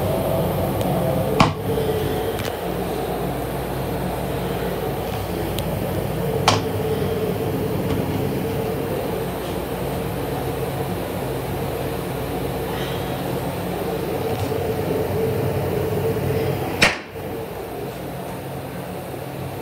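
Steady hum of a Metro-North M8 electric railcar heard inside its small restroom, with three sharp knocks about a second and a half, six and a half and seventeen seconds in. The last knock is the loudest, and the hum is a little quieter after it.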